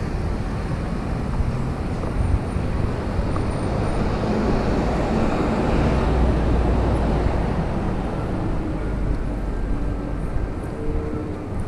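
Street traffic: cars and a bus passing close by on a city street, a steady rumble of engines and tyres.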